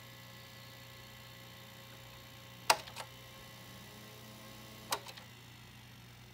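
Opened General Electric VG-7910 VHS recorder running as it tries to play a loaded tape, with a steady hum from its motors. Two sharp mechanical clicks come about two seconds apart, each followed by a couple of smaller clicks, from the tape mechanism.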